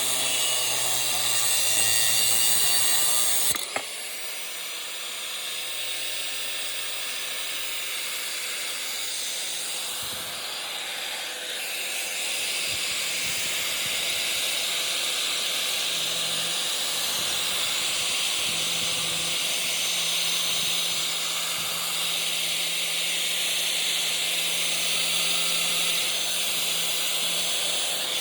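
Angle grinder running and cutting into metal, a steady whine with a hissing grind. The sound changes abruptly about three and a half seconds in, then carries on evenly.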